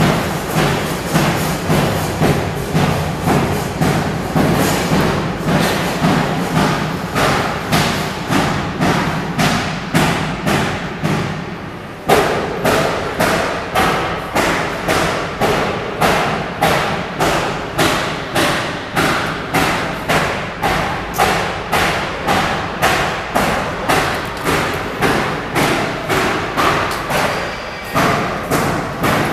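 Needle-detector conveyor belt running with a steady rhythmic knocking, about three thumps every two seconds, dipping briefly about twelve seconds in and then coming straight back.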